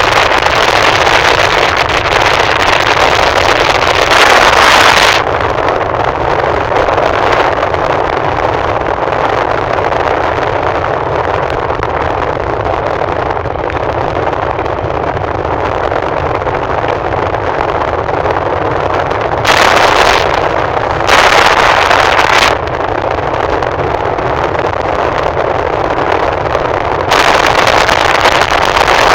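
Steady road and wind noise of a moving car, with several louder stretches where wind buffets the microphone.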